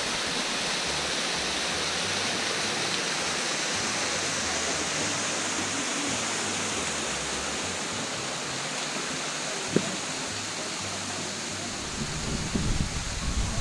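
Steady rush of water from a small waterfall splashing down a rock face and its rocky stream, an even hiss. A single sharp click about ten seconds in, and low rumbling near the end.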